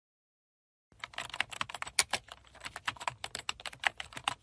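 Rapid typing on a laptop keyboard: a fast, uneven run of key clicks that starts about a second in.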